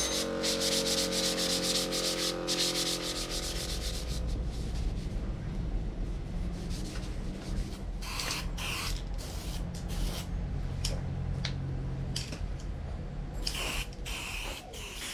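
Abrasive paper sanding a metal part of an old hydraulic bottle jack: quick back-and-forth rubbing strokes, then slower, more separate strokes from about eight seconds in.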